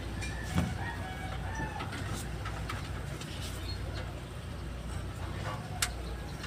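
Chickens clucking in short, broken calls, with a knock about half a second in and a sharp click near the end.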